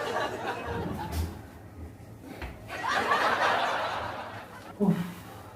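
Soft, breathy chuckling, with a brief low blip near the end.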